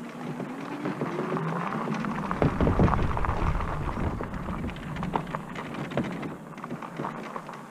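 Aventon Aventure e-bike and homemade kayak trailer rolling over gravel: tyres crunching with many small rattling clicks, and a faint whine rising in pitch about a second in. Wind buffets the microphone with a low rumble about two and a half seconds in, lasting about a second.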